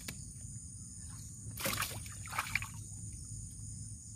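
Water splashing twice in quick succession, about a second and a half in and again just after two seconds, as hands work at the water's surface. A steady high drone of crickets and other insects runs underneath.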